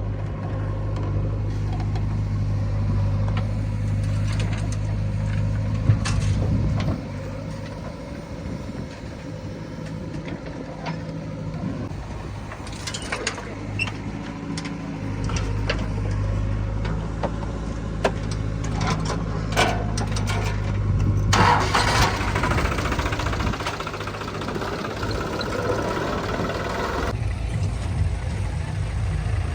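A heavy diesel engine runs steadily throughout, with scattered knocks and clanks. A louder, noisy rush comes from about 21 to 27 seconds in.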